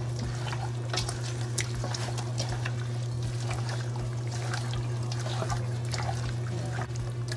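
Wet squelching and squishing of raw chicken leg quarters being rubbed with marinade by a gloved hand in a stainless steel pot: many short, irregular squishes. A steady low hum runs underneath.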